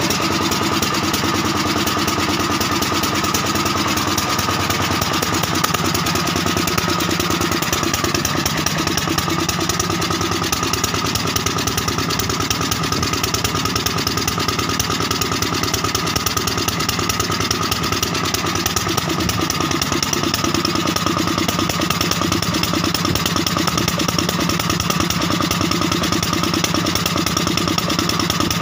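Single-cylinder engine of a 5 kVA biogas generator set running steadily on biogas, with an even, rapid beat.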